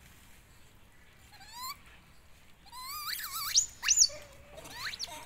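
A young macaque squealing in high, wavering cries that glide up and down in pitch: one short rising squeak about a second and a half in, then a run of loud shrieks about three to four seconds in, and one more near the end.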